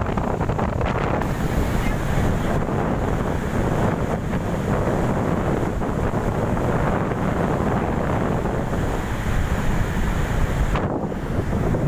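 Strong wind buffeting the microphone over the steady rush of big waves breaking.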